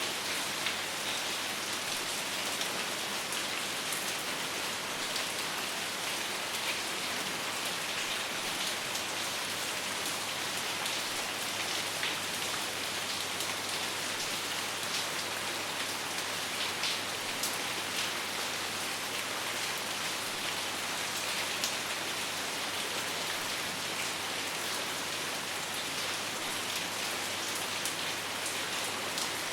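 Steady rain falling, an even hiss of many drops with scattered sharper individual drop ticks; no thunder.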